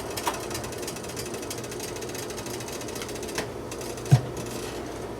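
Beef-broth gravy bubbling in a pan as it heats toward a light boil: a fast, irregular patter of small pops over a steady hiss. A few knocks of a utensil against the pan, the loudest about four seconds in.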